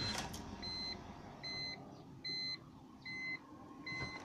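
Electronic warning beep repeating steadily, a short high-pitched tone about every 0.8 seconds, six beeps in all.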